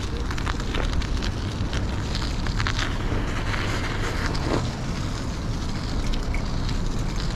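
Wind rumbling on the microphone of a bicycle-mounted camera while riding, with the tyres crackling over a snow-covered path and frequent small clicks and rattles from the bike.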